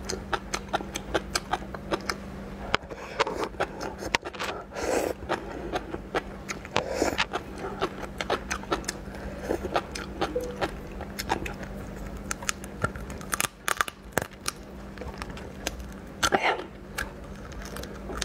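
Close-up eating sounds of a raw slipper lobster: the thin shell crackling and clicking as it is pulled apart by hand, with biting, chewing and wet mouth sounds, a few louder slurp-like bursts among many quick sharp clicks. A faint steady hum runs underneath.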